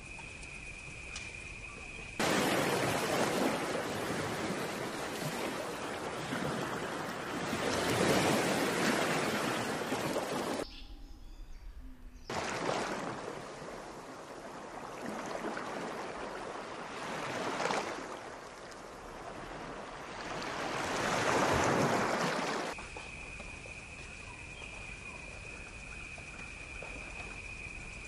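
Sea waves breaking and washing, in surges that swell and fade every few seconds, with a short quiet gap about eleven seconds in. Before and after the surf, a steady high-pitched tone sits over a faint background hiss.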